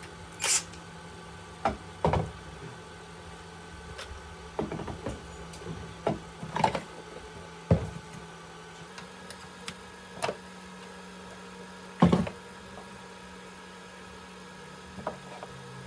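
Scattered light knocks and clicks from hard objects being handled and set down, about a dozen spread irregularly, the loudest about twelve seconds in, over a faint steady hum.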